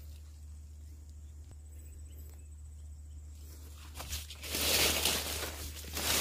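Footsteps and rustling of leaves and grass as someone pushes through dense undergrowth. The rustling starts about four seconds in and comes in several swells. Before it there is only a low steady hum and a faint thin high tone.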